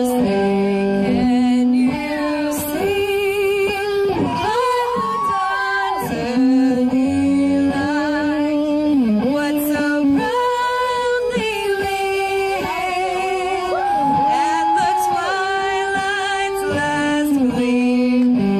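A woman singing a held, wavering melody into a microphone, amplified through the stage PA, with an electric guitar backing her.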